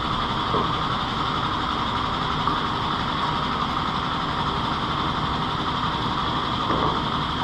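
Shop vacuum running steadily with a constant whooshing whine.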